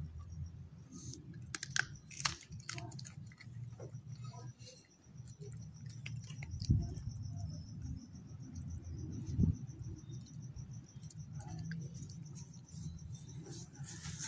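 A beagle mouthing a piece of raw chicken breast bone: scattered sharp clicks of teeth on bone, mostly in the first few seconds, with two soft thumps later, over a low steady hum and a faint high whine through the middle.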